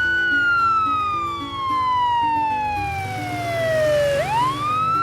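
Police car siren wailing: one slow falling sweep over about four seconds, then a quick rise back up near the end. Light background music plays under it.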